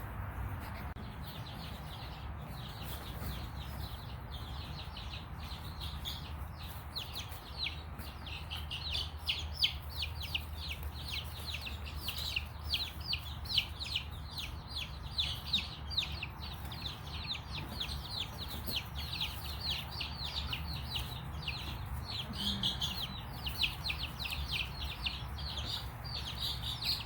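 A brood of baby chicks peeping continuously: many rapid, short, high peeps that fall in pitch, starting about a second in and growing busier, over a steady low rumble.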